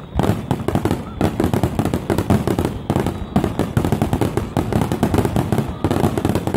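Aerial fireworks: many shells bursting in quick succession, a dense, unbroken run of bangs and crackles.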